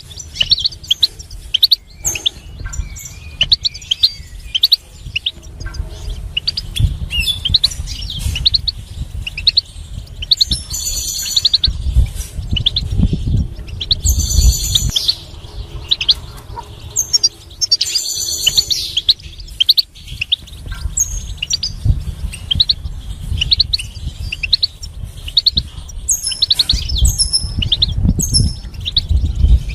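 European goldfinch singing: a continuous run of rapid twittering phrases of short high notes, with three denser, buzzy trills in the middle. Low thumps and rumble sound underneath.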